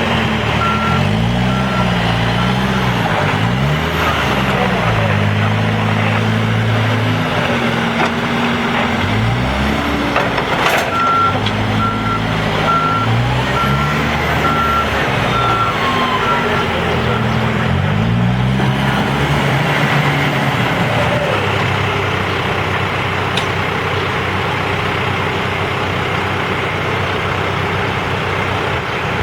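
Case 590 Super N backhoe loader's diesel engine revving up and down over and over as it works the loader, then settling to a steady run for the last third. A back-up alarm beeps about once a second, briefly near the start and again for several seconds mid-way.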